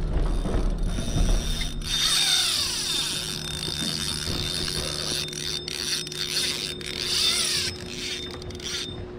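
Fishing reel's drag buzzing as a hooked carp runs and pulls line off the spool. It starts about two seconds in, surges again near the end and stops a little before the end, with a few sharp knocks.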